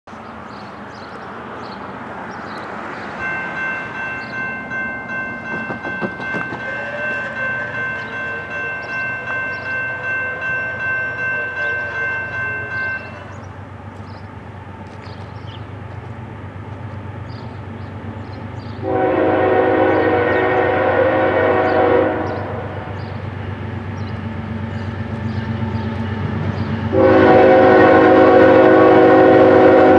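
Approaching Norfolk Southern GE ES44AC diesel locomotive: a low engine rumble throughout, a bell ringing in quick regular strokes from a few seconds in for about ten seconds, then two long air-horn blasts, the second the loudest and still sounding at the end.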